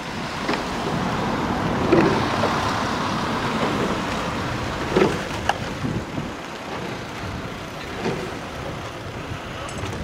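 A rowing four's oars splashing through the water, a stroke about every three seconds, over steady wind and water noise.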